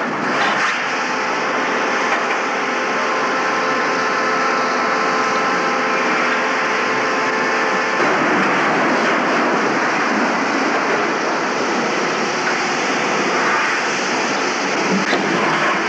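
Steady, loud machinery noise of a hot-forging shop from an old film soundtrack: a dense mechanical wash with a few steady tones, changing character about eight seconds in.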